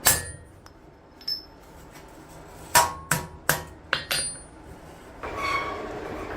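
Hammer blows on steel, ringing: a single strike, a lighter tap, then a quick run of five strikes. About five seconds in, a steady machine noise starts up.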